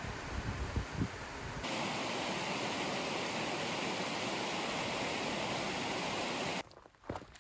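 Small mountain stream cascading over rocks: a steady rush of water, with wind buffeting the microphone in low gusts for the first second and a half. Near the end it cuts to footsteps on a rocky trail.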